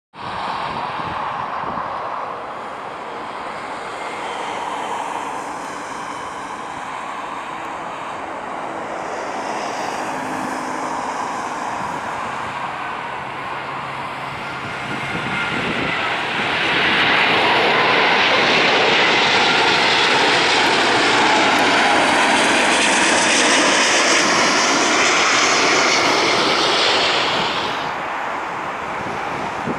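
Airbus A380-841's four Rolls-Royce Trent 970 turbofans on final approach to land: a steady jet rumble and whine that swells about sixteen seconds in as the aircraft passes close, then falls away near the end as it flares over the runway.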